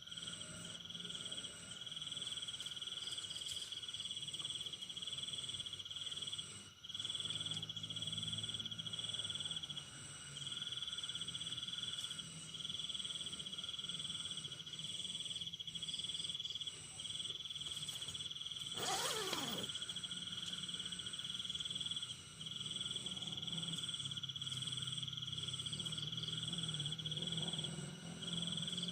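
Insects chirring in long unbroken trills, a steady high-pitched tone broken by brief gaps every few seconds, over a faint low hum. A short sweeping sound passes about two-thirds of the way through.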